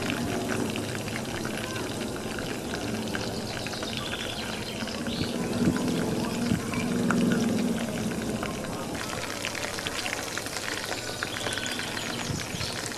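Battered chicken wings deep-frying in hot oil in a pan: a steady bubbling sizzle with dense fine crackles. About halfway through, a louder low hum swells for a couple of seconds.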